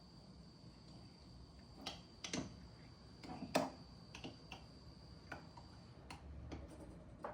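Faint, irregular clicks and taps of a spoon against a jar and bowl while thick, oil-separated tahini is stirred and scooped out. A faint steady high whine runs underneath and stops about six seconds in.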